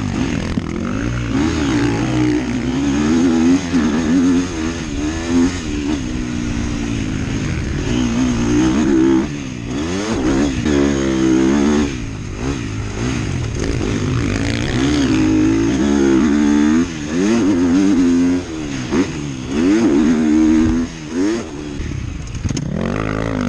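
KTM motocross bike's engine, heard from on the bike, revving hard and dropping back over and over as the rider races the dirt track, with brief dips as the throttle is shut.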